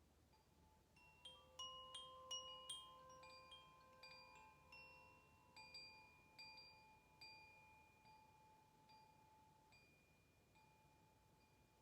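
Metal chimes ringing softly, high bell-like tones. A flurry of overlapping strikes comes about a second in, then single strikes less than a second apart, each ringing on and fading as the playing dies away near the end.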